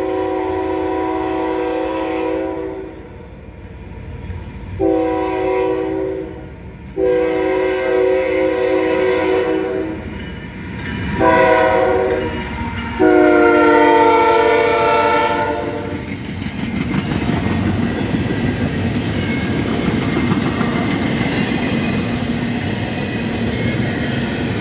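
CSX freight locomotive's multi-note air horn sounding five blasts, long, short, long, short, long, as a grade-crossing warning while the train approaches and passes. After the last blast, the intermodal cars roll past with a steady rumbling rail noise.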